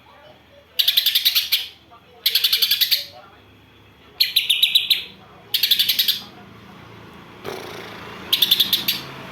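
Greater green leafbird (cucak ijo) calling in five short bursts of rapid chattering notes, each under a second long, with pauses of about a second or two between them.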